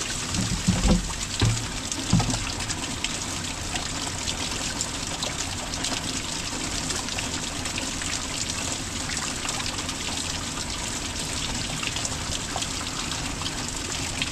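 Water trickling and dripping from a seep in a rock face into a plastic jug held under it: a steady splashing trickle with many small drips. A few low bumps come in the first two seconds.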